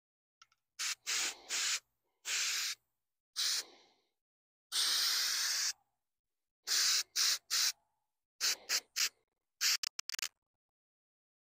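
Aerosol spray can of textured coating sprayed in a string of short hissing bursts, the longest about a second near the middle, as the texture finish is built up and evened out on the grille.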